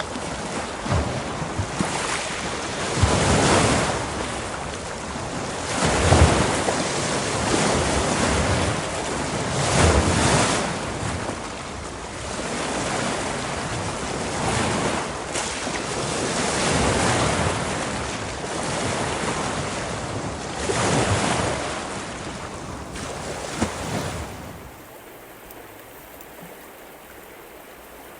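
Ocean surf: waves breaking and washing in, the rush swelling every few seconds, with wind. Near the end it gives way to a quieter, steady rush of water.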